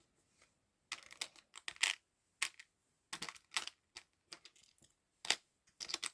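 Small metal butterfly charms clicking and clinking together as they are handled and spread out: a string of light, irregular taps, some in quick clusters.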